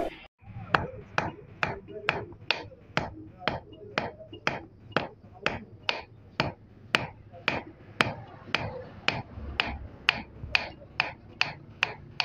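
Hand hammer striking a thin red-hot piece of steel on a square steel anvil block, about two evenly spaced blows a second, each a sharp metallic strike with a short ring: hot forging, drawing out the steel.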